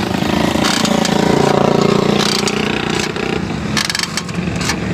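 Rear brakes of a 2022 Suzuki Swift creaking as the brake is applied while driving, a drawn-out 'charr' groan like a door opening that lasts about two and a half seconds, over the car's engine and road noise. A few sharp clicks come near the end. The noise is traced to the rear-wheel brakes.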